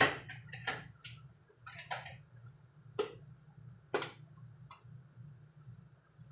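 Sharp clicks and knocks of seasoning jars and a plastic shaker being picked up, set down and opened on a kitchen counter, about seven in all, the loudest at the start and about three and four seconds in. A steady low hum runs underneath.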